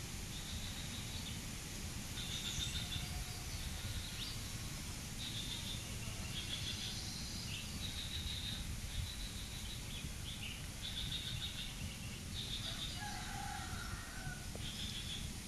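Outdoor ambience of repeated short high-pitched chirps from wildlife, one every second or two, over a steady low rumble, with a lower call near the end.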